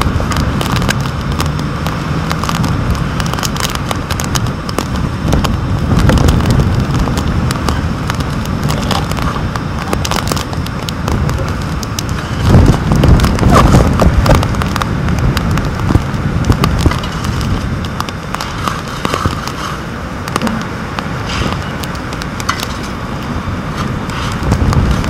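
Storm wind gusting against the microphone inside a waterproof camera housing, in low rumbling surges, with rain hitting the housing in a dense run of small clicks.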